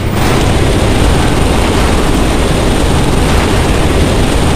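Loud, steady cabin noise of an aircraft in flight: engine drone and rushing air blended into an even, unbroken noise.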